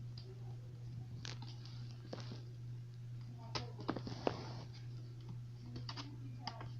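Scattered small clicks and taps of laptop parts being handled during a screen replacement, with a cluster of sharper clicks about four seconds in, over a steady low hum.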